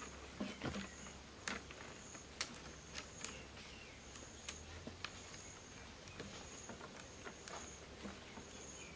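Light, irregular clicks and taps of thin cane sticks and wire being handled and bound into a fish trap. A short, high chirp repeats about once a second in the background.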